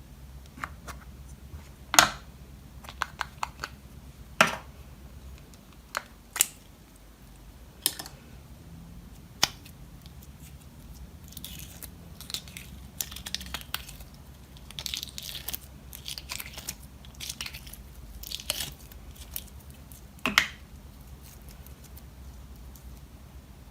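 Slime and makeup being handled and mixed: scattered sharp clicks and pops, with a stretch of quick crackling through the middle.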